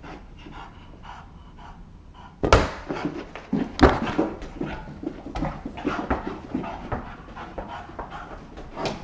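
Bulldog panting hard and fast from play, the breaths growing louder and busier after the first couple of seconds. Two sharp loud knocks come about two and a half seconds in and again just over a second later.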